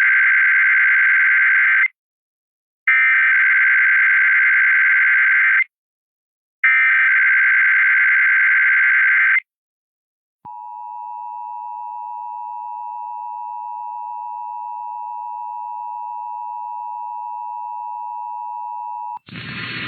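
Emergency Alert System Required Monthly Test: three bursts of the SAME digital data header, each just under three seconds, about a second apart. About ten seconds in comes the two-tone EAS attention signal (853 and 960 Hz), which holds steady for about nine seconds and cuts off near the end into noisy broadcast audio.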